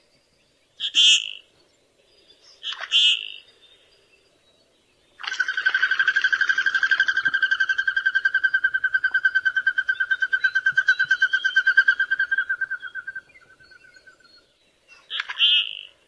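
Common goldeneye recording: three short, sharp calls about two seconds apart, then a long, even, rapid trill of about eight seconds that trails off, and one more short call near the end.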